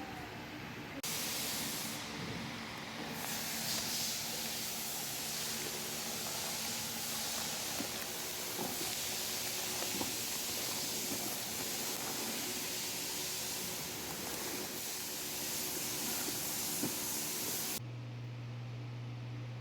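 A steady, loud jet of air or spray hissing, starting about a second in and cutting off abruptly near the end, leaving a low steady hum.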